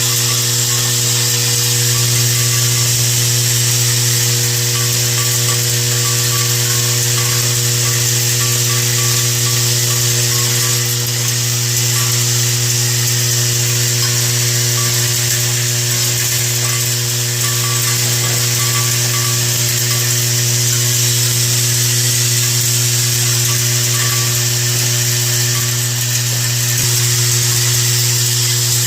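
Range-brass bowl sorter running: a steady mechanical hum with the constant hiss and rattle of mixed pistol brass cases moving through the bowl and rails.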